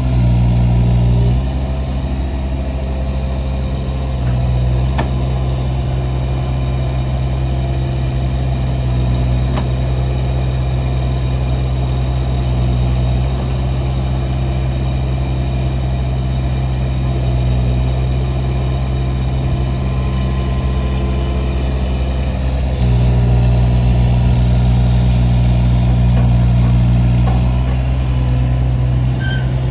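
Kubota U17-3a mini excavator's three-cylinder diesel engine running steadily, its note stepping up and down a few times and louder for several seconds in the last third.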